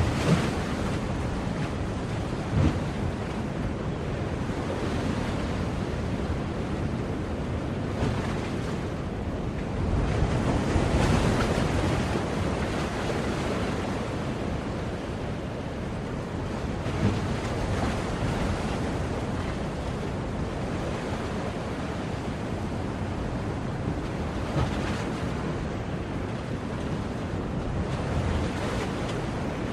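Ocean waves surging and washing onto a shore in a steady wash of surf, with a louder surge about ten seconds in.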